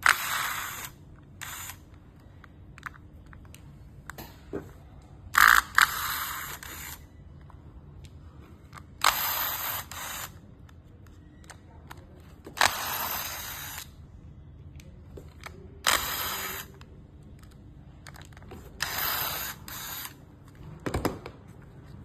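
A small mechanism whirring in six short bursts of about a second each, several seconds apart.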